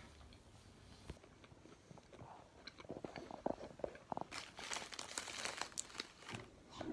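Irregular crunching and crinkling handling noises, sparse at first and busier in the second half.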